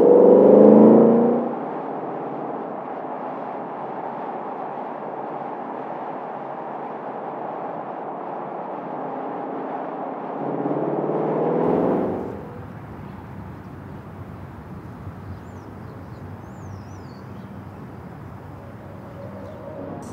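2024 Ford Mustang GT's 5.0-litre V8 driving, its exhaust note rising loudly for about a second and a half at the start. Steadier engine and road noise follows, then a second swell of the exhaust about ten seconds in. After that the car noise drops to quieter outdoor background with faint chirps.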